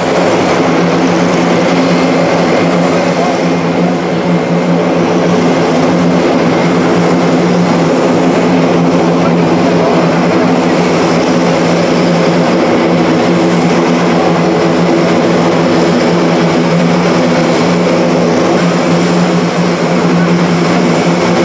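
Airbus A400M's four TP400-D6 turboprop engines running at low power as the aircraft taxis, eight-bladed propellers turning. It is a steady, loud drone with a deep propeller hum under a broad hiss.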